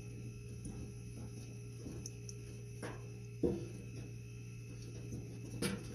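A few faint knocks and clunks from a Kenmore dryer's new drive belt and idler tensioner being worked around the motor pulley, the sharpest about halfway through. A steady low hum runs underneath.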